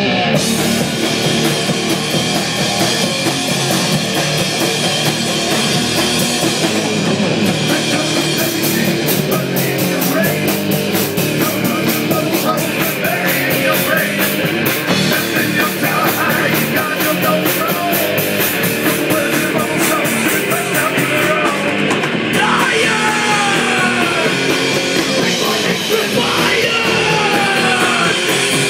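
Live rock band playing loudly through PA speakers: electric guitars and drum kit, in a heavy, punk-like style.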